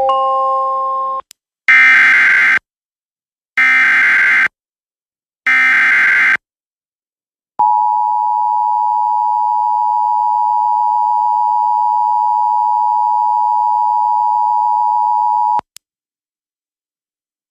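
The last note of a rising three-note chime, then three short buzzy bursts of EAS digital header data about two seconds apart. Then the steady two-tone EAS attention signal sounds for about eight seconds and cuts off sharply. The sequence marks the start of a new Special Marine Warning broadcast.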